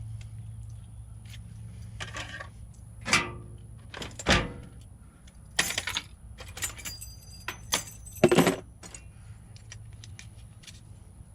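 Keys and metal lock parts clinking and clicking as a door lock cylinder is handled, in a string of sharp knocks, some briefly ringing, spread over several seconds, over a low steady hum.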